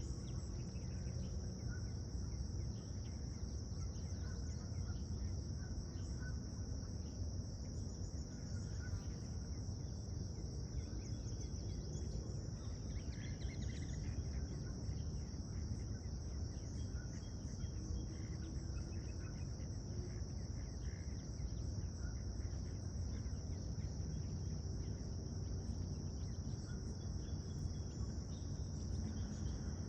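Steady chorus of insects, a continuous high-pitched trilling, over a constant low rumble.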